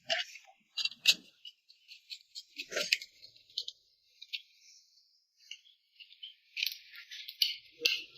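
Hand tools and electrical wires being handled at a wall switch: irregular small clicks and metallic rattles, with a denser stretch of scraping near the end.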